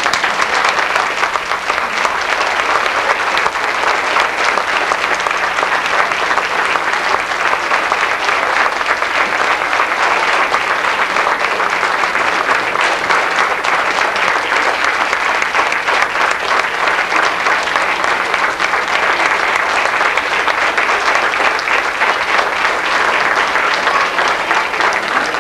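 Audience applauding: dense, even clapping that keeps up at a steady level without a break.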